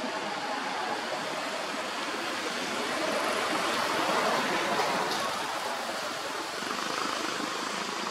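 Steady rushing background noise, swelling a little in the middle, with no distinct event.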